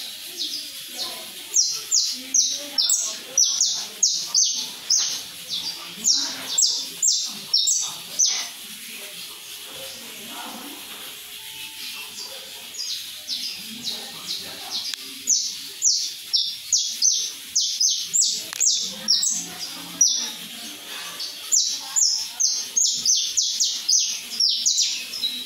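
Caged saffron finch (canário-da-terra) singing: three long phrases of sharp, repeated high chirps, about three a second, with short pauses between phrases.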